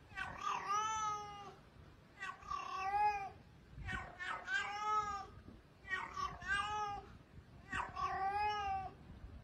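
A kitten meowing five times, about once every two seconds. Each meow is drawn out and rises then falls in pitch.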